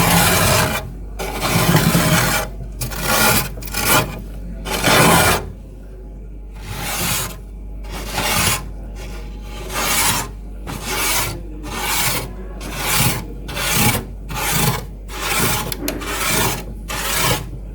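Frost being scraped off the inside of a freezer, in repeated rasping strokes. The first few strokes are long; after that, shorter strokes come steadily, about one and a half a second.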